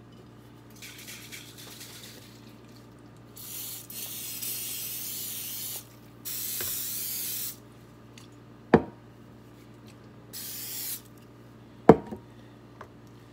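Aerosol cooking spray hissing in several bursts of a second or two each onto the plates of a heated waffle maker. Two sharp knocks come between the later sprays, about three seconds apart.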